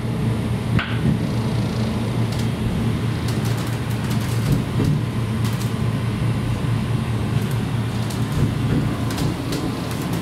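Diesel engines of a KiHa 54 railcar running, heard from inside the cabin as a steady low rumble, with a few light clicks.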